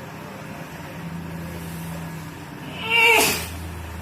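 A man's single loud, forceful cough about three seconds in, with a voiced tail that falls in pitch.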